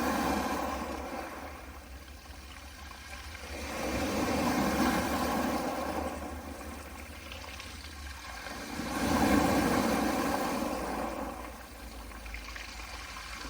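Small, soft waves washing onto a pebble beach. They swell and ebb in slow surges about every four to five seconds: one at the start, one about four seconds in and one about nine seconds in.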